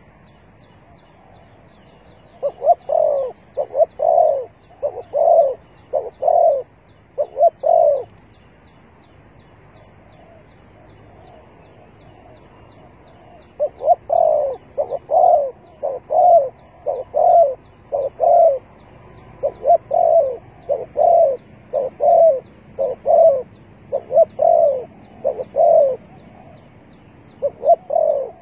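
Spotted dove cooing: repeated low coo phrases in two long bouts with a pause of about five seconds between them, starting again near the end. A faint high ticking repeats about three times a second throughout.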